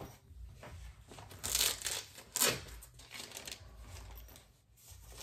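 Crinkling and rustling as a cross-stitch project is handled and brought out, with the loudest crinkles about one and a half and two and a half seconds in.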